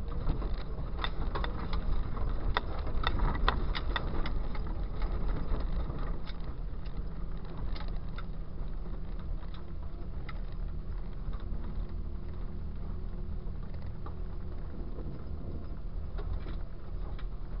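Jeep driving slowly over a rough dirt trail: a steady low rumble of engine and drivetrain with many clicks and rattles from the body and suspension, busiest in the first six seconds and steadier after that.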